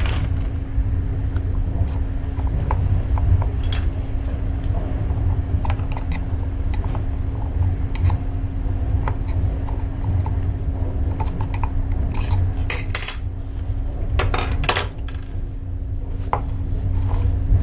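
Small metal parts and tools clinking and tapping against each other and a work surface, in scattered short clicks with a few louder clinks near the end, over a steady low rumble and hum.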